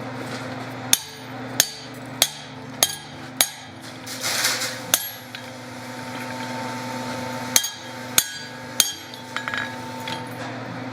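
Hand hammer striking a spring fuller on hot steel at the anvil, fullering in a waist below the rib cage of a forged figure: five ringing blows at an even pace, a pause, then three more.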